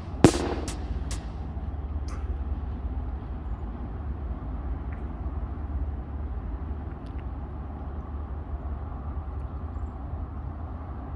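Steady low rumble of outdoor background noise, with one sharp knock just after the start and a few faint ticks.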